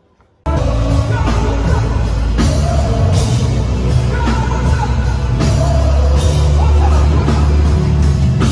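Loud band music with singing cuts in suddenly about half a second in, carried by heavy bass and drums.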